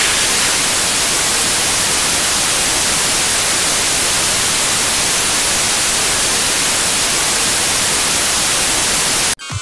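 Steady TV static hiss, like white noise, that cuts off suddenly near the end.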